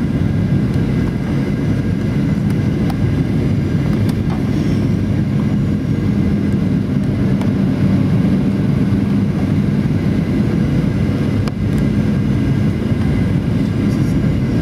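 Steady cabin noise inside a Boeing 737-800 on approach: its CFM56-7 jet engines and the airflow over the fuselage make a loud, deep rumble with a steady hum, and a few faint clicks.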